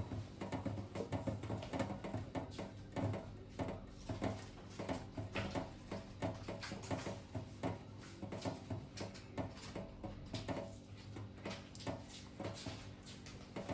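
Magazine paper crackling and rustling in an irregular string of short crackles as a chef knife is slid through it in a paper cut test of the edge.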